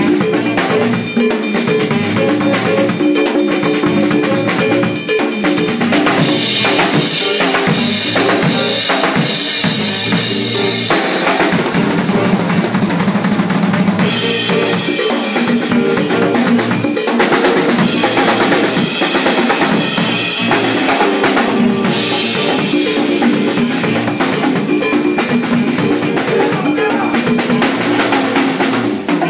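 Live Latin jazz combo playing, with the drum kit and percussion out front: kick drum, snare rimshots and cowbell over pitched bass and piano lines. Cymbals ride high and loud through long stretches.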